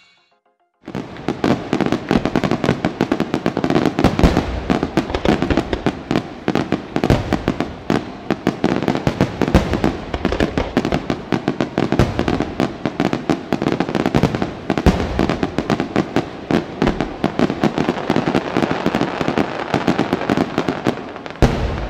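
Aerial fireworks display: a dense, continuous barrage of shell bursts and crackling, with rapid bangs packed close together. It starts abruptly about a second in, after near silence.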